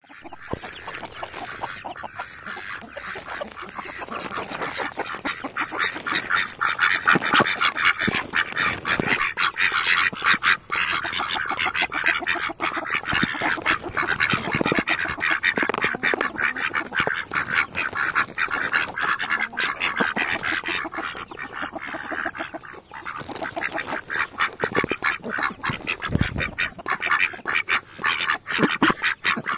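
Domestic ducks quacking and chattering rapidly at close range, excited at being fed peas; the calls grow louder a few seconds in and keep up without pause.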